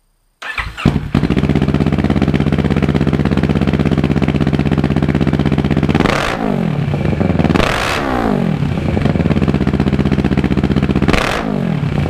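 2016 Kawasaki Ninja 650's parallel-twin engine running through a freshly installed Two Brothers aftermarket exhaust. It fires up about half a second in, settles into a steady idle, and is blipped three times, rising and falling, at about six, eight and eleven seconds.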